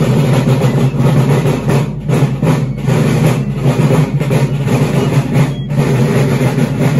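Field drums of a marching drum corps beating a continuous march rhythm.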